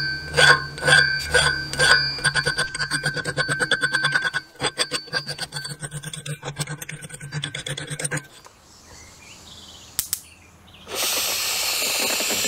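Round file stroking across the edge of a forge blower's metal fan blade, the blade ringing with each stroke: slower strokes about twice a second at first, then quicker, lighter strokes for several seconds before they stop. Near the end a steady hiss of abrasive blasting starts on the blower's cast cover plate.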